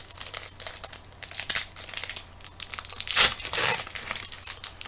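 Crinkling and tearing of trading-card pack wrapping as it is handled, a dense run of crackles with the loudest burst a little past three seconds in.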